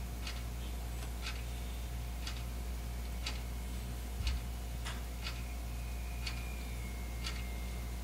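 A clock ticking once a second, sharp even ticks with a few extra clicks between them, over a low steady hum; a soft low thump about four seconds in.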